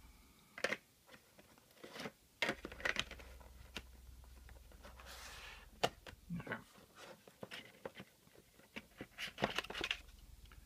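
Handling noise from a bare circuit board being set into and lifted from a cardboard box: scattered light taps, clicks and scrapes, with a brief rustling slide about five seconds in.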